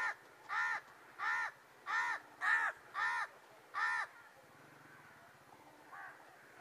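A crow cawing: seven caws in a quick, even series, then a single faint caw near the end.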